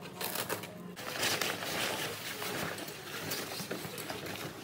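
Background music with sustained notes stops about a second in, giving way to a dense rustling of tent canvas with scattered light knocks and clicks as the rooftop tent's fabric is handled.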